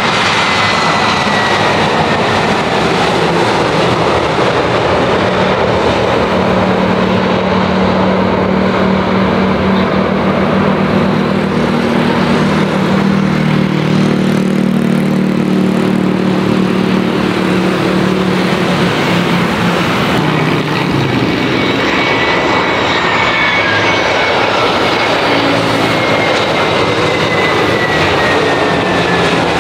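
Turbofan jet engines of Airbus A320 airliners running loud and steady as the planes roll along the runway. A low hum is strongest through the middle, and high whines fall in pitch near the start and again over the last few seconds.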